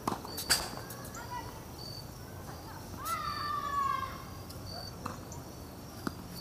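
Tennis balls struck by rackets and bouncing on a hard court in a doubles rally: sharp pops right at the start and about half a second in, then fainter ones around five and six seconds. A drawn-out falling call about three seconds in, and crickets chirping every second or so throughout.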